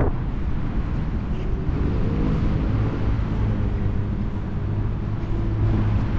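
Steady rumble of road traffic with an engine hum, and a vehicle passing about two seconds in.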